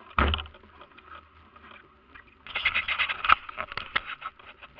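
Mountain bike rattling and jolting down a rough dirt trail: a heavy bump just after the start, then from about halfway a dense clatter of quick knocks as the bike runs over the bumpy ground, with a few harder hits near the end.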